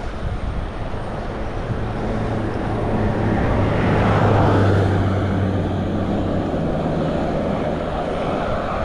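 A motor vehicle passing on the road, its engine hum and tyre noise swelling to a peak about four seconds in and then fading, over steady wind noise on the microphone from riding the bicycle.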